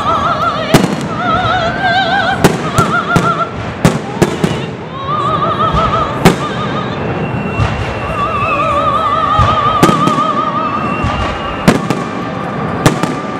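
Fireworks display: shells bursting overhead in irregular sharp bangs, around fifteen of them, over continuous crackling. Music plays underneath, with a high woman's voice singing opera-style with wide vibrato in long held notes.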